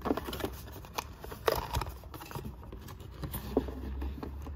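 Small paperboard burger box being folded shut and handled, with light clicks, taps and scrapes of card against card and the tabletop.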